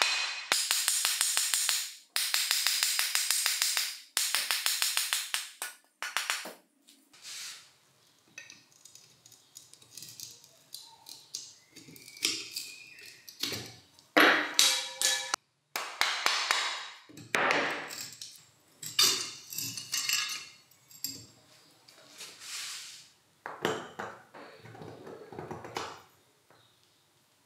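Metal parts of a vintage electric drill being dismantled by hand: a fast run of sharp taps for about six seconds, then scattered clinks, knocks and short scrapes of tools against metal.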